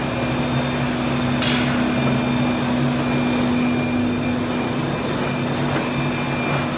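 Wohlenberg Quick Binder hotmelt perfect-binding machine running: a steady mechanical hum with a throbbing undertone and high steady whines, and a short hiss about a second and a half in.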